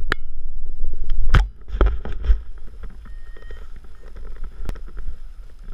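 Handling noise on an action camera: a low rumble and several sharp knocks as fingers touch and adjust the camera. This is followed by quieter rustling and one more click as gloved hands sort the paraglider's lines.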